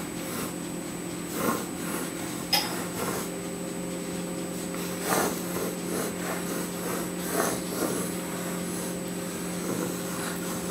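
Felt-tip marker drawing: a few short scratchy strokes, spread a second or two apart, over a steady electrical hum.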